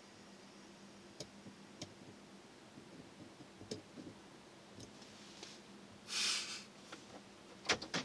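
Faint steady background hum with scattered small clicks. A short burst of rushing noise comes about six seconds in, and a couple of sharp clicks follow near the end.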